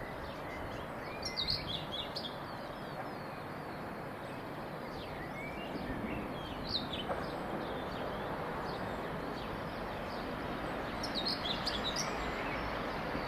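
Small birds chirping in short clusters, about a second and a half in, around six to seven seconds in, and again near the end, over a steady rushing background noise.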